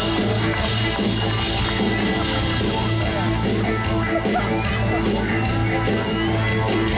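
Live rock band playing, with a steady bass line, guitar and drums.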